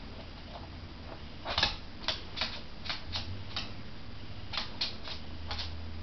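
A small Havanese puppy's claws clicking on a hard floor: about a dozen sharp, irregularly spaced taps in a cluster over a few seconds, over a steady low hum.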